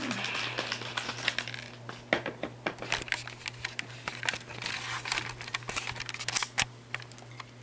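Crinkling and crackling of a snack-bar wrapper being pulled open and handled, in irregular bursts.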